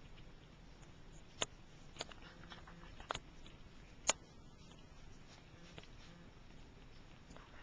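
A cat eating from a small dish: a few faint, sharp clicks a second or so apart against low room noise.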